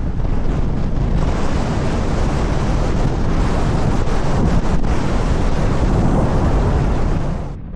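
Strong wind buffeting the Insta360 Ace Pro 2's built-in microphone: a dense, rumbling noise heaviest in the low end. It falls away abruptly near the end.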